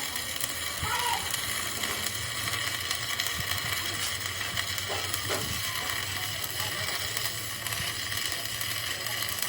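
Steady hissing noise with a low hum underneath, holding level with no distinct strikes or starts.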